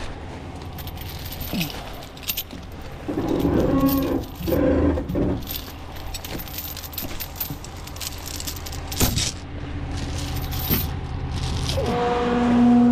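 Tow truck's engine running steadily under scattered metallic clinks and rattles. Near the end a steady droning whine starts and becomes the loudest sound.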